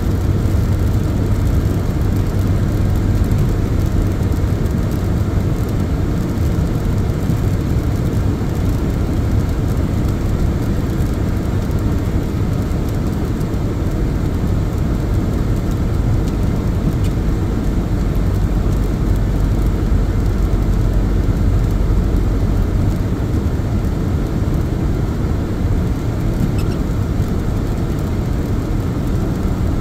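Steady road noise of a car driving on a highway, heard from inside the cabin: a low, even rumble of tyres and engine.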